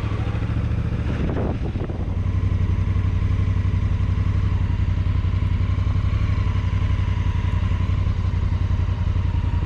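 Honda CRF1000L Africa Twin's parallel-twin engine running at a steady, even pulse, with no rise or fall in pitch, and a brief noise about a second and a half in.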